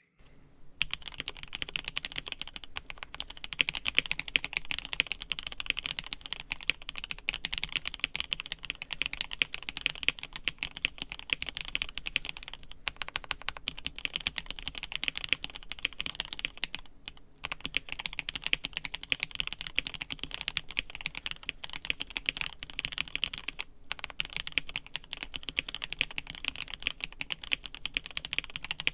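Continuous fast typing on a KBD67 Lite mechanical keyboard fitted with lubed and filmed HK Pro Marlin Blue switches, stock stabilizers and GMK Pulse keycaps. The keystrokes come in a dense stream, with three brief pauses.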